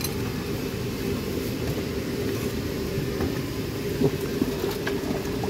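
Steady low rumble of background noise, with a couple of short metal clinks about four seconds in from a ladle knocking inside a large aluminium soup pot.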